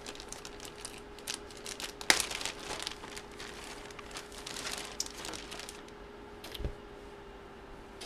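Plastic packaging crinkling and rustling as it is handled and opened. There is a sharp crackle about two seconds in and a dull thump late on.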